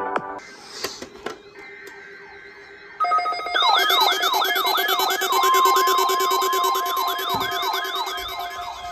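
Weather alert radios sounding their alarms for the weekly warning alarm test: a loud siren-like falling whoop repeating about three times a second over steady beeping tones. It starts suddenly about three seconds in, and a steady tone runs alongside it in the middle.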